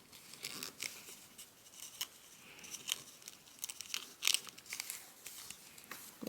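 Origami paper being folded and pinched by hand: soft crinkling with irregular crisp little crackles as the creases are pressed. The loudest crackle comes a little past four seconds in.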